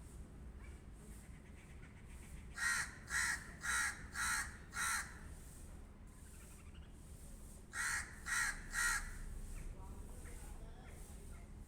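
Pet crow cawing: a run of five short, harsh caws about two and a half seconds in, then three more about eight seconds in.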